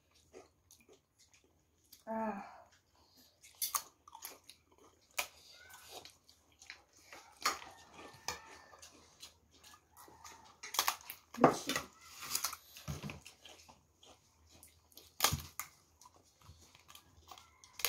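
Close-up eating sounds: wet chewing and biting, with sharp crunches and crackles from bites of a crisp flat cracker, loudest around the middle and about three quarters of the way through. A short pitched sound, like a brief voice or animal call, about two seconds in.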